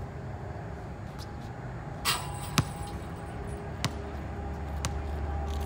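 A basketball bouncing on a concrete outdoor court: three separate sharp thuds, the second the loudest, over open-air background noise. A low steady rumble comes up near the end.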